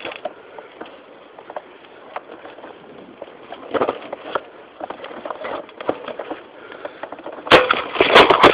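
Close handling noise from a phone camera clamped to an airsoft shotgun: scattered clicks and rubbing against the mount, with dry grass and brush rustling. Near the end there is a loud burst of knocking and scraping as the gun is swung and carried forward.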